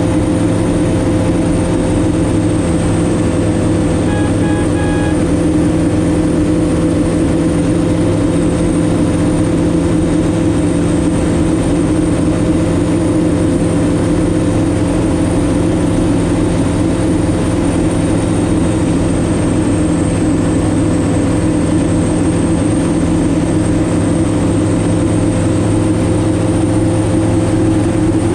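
Kitfox Model 7 Supersport light aircraft's engine and propeller droning steadily at constant power in flight, heard from inside the cockpit. Three short beeps sound about four seconds in.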